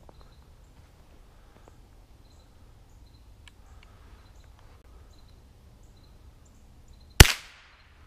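A single shot from a 1933 Savage Sporter .22 LR rifle, one sharp crack near the end that dies away quickly, after several seconds of quiet woods with a few faint clicks and rustles.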